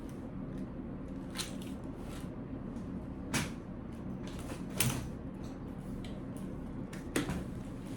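Scattered sharp clicks and knocks of a baby stroller's frame and parts being handled, about five in all, spaced a second or so apart, over a steady low hum.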